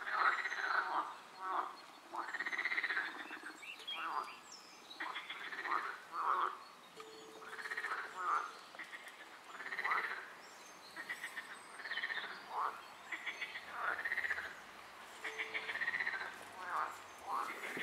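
Frogs croaking over and over, about one call a second, each call rising then falling in pitch.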